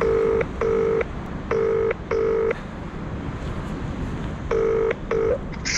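Smartphone on loudspeaker playing the ringback tone of an outgoing call: a low double ring (ring-ring, short pause), heard three times. The last ring is cut short as the call is answered.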